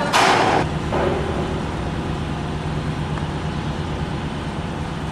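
A short loud hissing burst in the first half second, then an engine running steadily with a low drone.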